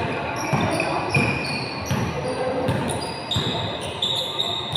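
A basketball bouncing on a hard indoor court amid running players, with short high squeaks of shoes on the floor, echoing in a large gym.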